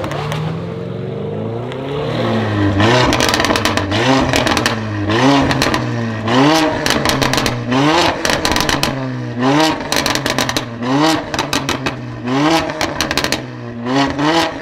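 A modified car's exhaust: the engine idles briefly, then is blipped in about ten quick revs, each rising and falling in pitch, with pops and crackles from the exhaust as the revs drop.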